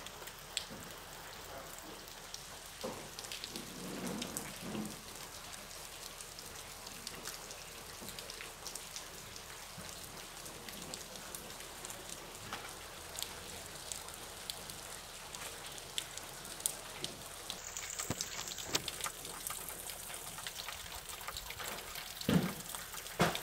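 Falling snow pattering lightly on surfaces, heard as a faint steady hiss with many scattered small ticks. There is a louder knock near the end.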